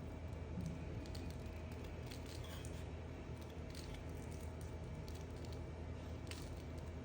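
Knife cutting into bar soap: scattered faint crisp crunches and clicks, a few seconds apart, over a steady low hum.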